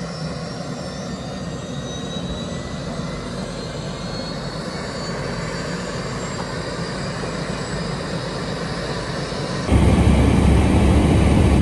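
Airbus AS350 helicopter's turbine engine starting up: a steady whine that rises slowly in pitch as the rotor begins to turn. Near the end, a much louder, deeper sound abruptly takes over.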